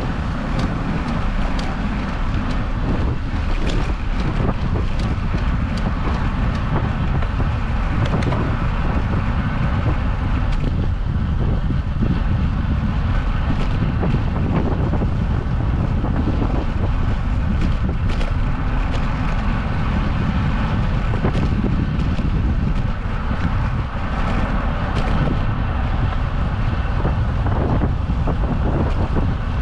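Wind buffeting a GoPro action camera's microphone on a moving bicycle, mixed with tyre and road noise, with scattered light clicks and rattles.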